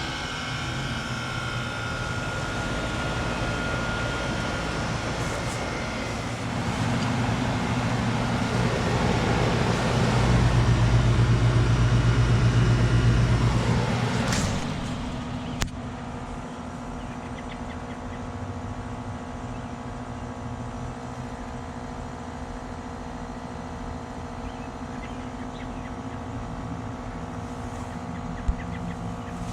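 Lennox Merit Series heat pump outdoor units in a defrost cycle. A loud rushing hiss with a deep hum builds and then cuts off abruptly about halfway through, a sharp click follows, and the units settle into a steadier, quieter running hum.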